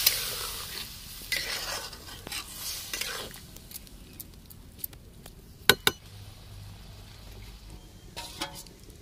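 A metal spatula stirs snail curry in a large kadhai. At first the steaming pan hisses loudly as just-added water heats, and the hiss fades within about a second. After that come scraping and sharp clinks of the spatula on the pan, the loudest two close together just before six seconds in.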